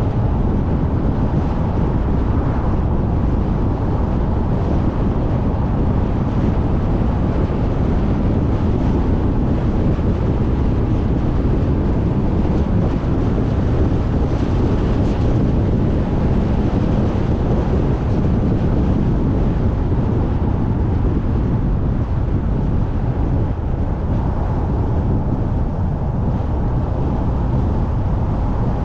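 Steady road and wind rumble of a car driving on a paved road, with no changes through the stretch.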